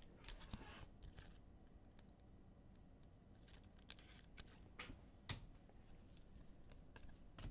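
Faint handling sounds of trading cards and their pack wrappers: scattered soft crinkles and light clicks, the sharpest about five seconds in.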